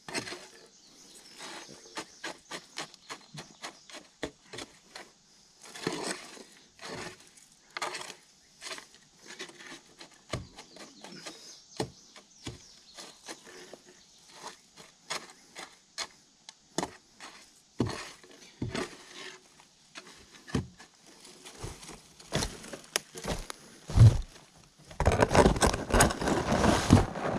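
Scattered scrapes and knocks of hand work with concrete mix around a wooden post in its hole, uneven in spacing, with a louder stretch of scuffing and crunching near the end.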